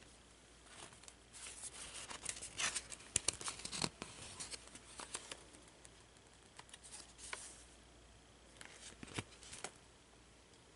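Paper pages of a collage art journal rustling and crinkling as they are handled and turned: a longer stretch of crackly rustling with a few sharp clicks over the first few seconds, then two shorter spells.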